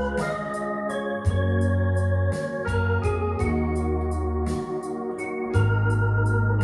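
Electronic keyboard played with an organ voice: sustained chords over a bass line that moves to a new note about once a second, with a steady ticking rhythm track behind it.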